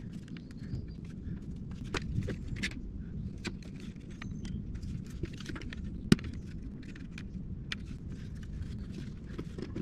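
Clamps and an oak board being handled on a concrete floor: scattered light clicks and knocks, with one sharper knock about six seconds in, over a steady low rumble.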